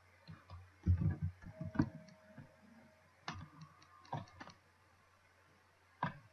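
Computer keyboard keys and mouse buttons clicking: a cluster of clicks between one and two seconds in, then single clicks at about three, four and six seconds in.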